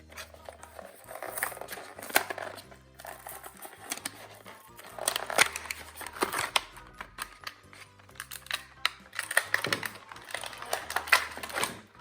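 Toy packaging being crinkled and torn open in several bursts of crackling, over background music.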